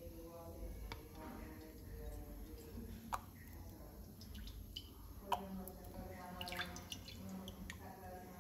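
Cooking oil ladled from a plastic tub into an empty aluminium kadai, trickling and dripping, with several sharp clicks of the steel ladle against the tub and pan. It is faint throughout.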